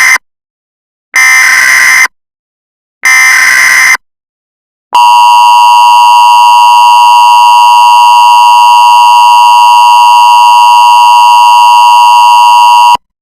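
Emergency Alert System signal, loud. The end of one burst of raspy data-header noise is followed by two more bursts, each about a second long and a second apart. Then comes the steady two-tone attention signal, held for about eight seconds and cutting off abruptly shortly before the end.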